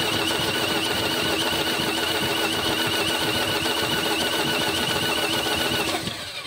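Diesel engine being cranked on its starter motor with a compression gauge fitted to one cylinder: a steady starter whine that wavers in pitch over a fast pulsing churn, stopping shortly before the end. This cylinder reads about 125 psi on the dry test, well below the 300 psi the mechanic expects from a healthy diesel.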